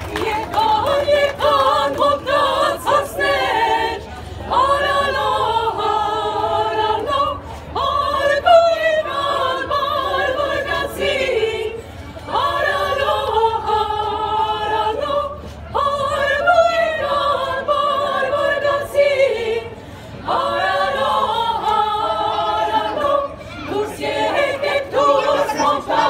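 A girls' choir singing unaccompanied, many voices together, in phrases of about four seconds with brief breaks between them.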